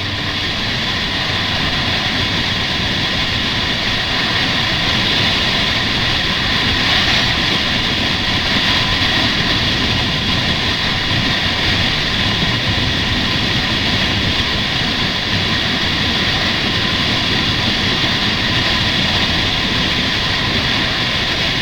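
Kawasaki Ninja 650's parallel-twin engine running under a steady rush of wind noise while the motorcycle is ridden.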